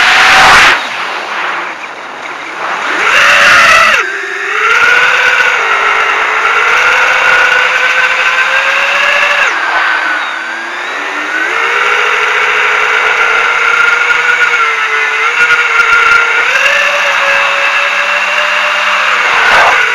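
FPV quadcopter's electric motors and propellers whining, the pitch rising and falling with the throttle, as heard from the onboard camera. A rushing burst sits near the start and another about three seconds in, and the pitch dips briefly about ten seconds in.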